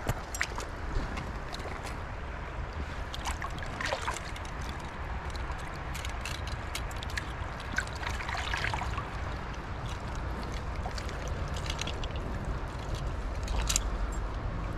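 Shallow stream water running and trickling, with small scattered splashes as a landing net holding a trout is worked in the water by hand, and one sharper splash near the end.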